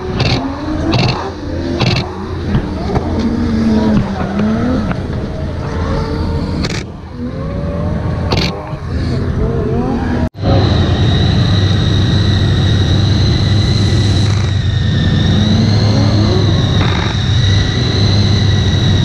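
Drift cars' engines running and revving on the starting grid, mixed with voices. About ten seconds in the sound cuts off abruptly, and a steady engine drone with a constant high whine follows.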